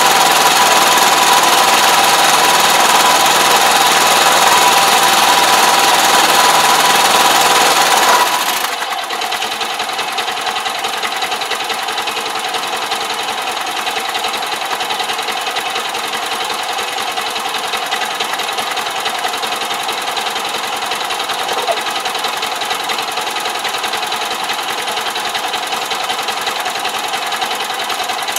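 Tractor engine running steadily, its speed dropping to a lower, quieter idle about eight seconds in.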